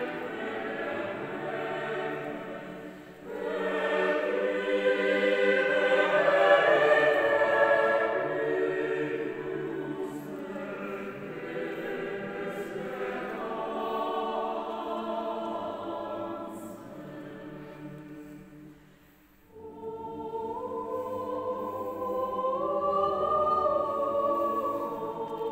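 Mixed chamber choir singing a slow piece in several parts, swelling to its loudest a few seconds in. The voices fall nearly silent for a moment about three-quarters of the way through, then a new phrase enters and the upper voice climbs.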